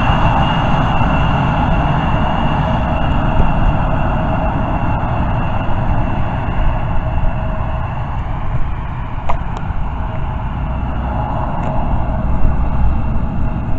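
Jet aircraft engines running, a steady whine over a low rumble that eases a little in the middle and strengthens again near the end.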